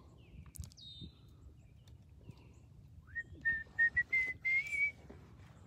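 A short run of whistled notes, each brief and close together, rising a little in pitch over about two seconds. Before it, near the start, comes a faint high chirp that falls in pitch.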